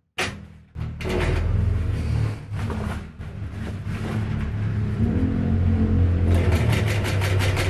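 Industrial cylinder-bed sewing machine running with a steady low hum, stitching along the fabric edge; near the end the needle strokes come as a rapid, even ticking.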